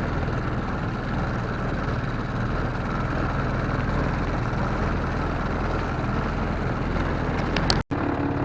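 Off-road vehicle engine running steadily at a low, even pace, with wind and rustle over it. The sound drops out abruptly for a moment near the end.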